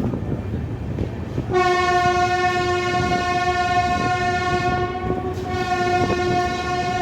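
Locomotive horn of a departing express train sounding one long, steady blast from about a second and a half in, over the rumble of the train on the track.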